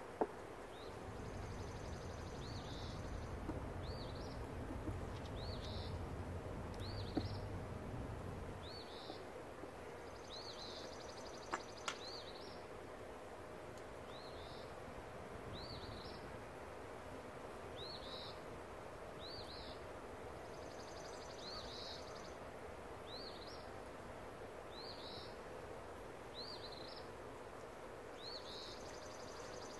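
A small bird repeating a short high chirp about once a second, with a few sharp clicks from wooden beehive frames being handled.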